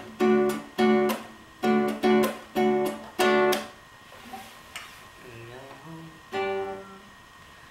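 Classical guitar played in a strummed rhythm pattern: short, sharply struck chords, each stopped quickly, about six in the first three and a half seconds. After a pause, one more chord rings about six and a half seconds in.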